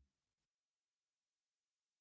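Near silence: the sound track drops out to digital silence.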